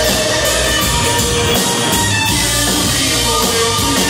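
Live hard rock band playing loudly: electric guitar over a drum kit, steady and unbroken.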